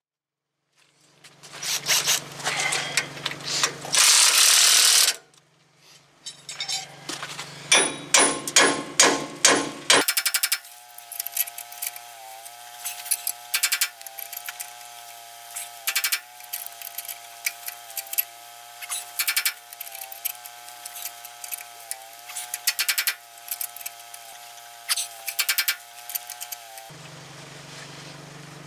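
Hand wrenches working the screw of a C-frame ball joint press to force the lower ball joint out of the cast iron knuckle: a run of sharp metal clicks and clanks, with a loud noisy burst about four seconds in. From about ten seconds a steady wavering hum runs underneath, with occasional clicks.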